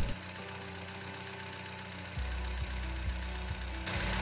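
Mitsubishi Lancer's carburetted engine idling, with the newly replaced auxiliary radiator fan running: a steady low hum. About two seconds in, a low rumble grows louder.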